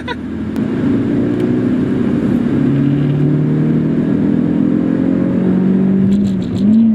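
Proton Satria Neo R3's four-cylinder engine pulling under acceleration, heard from inside the cabin, its hum climbing slowly in pitch. Near the end the pitch dips briefly and rises again.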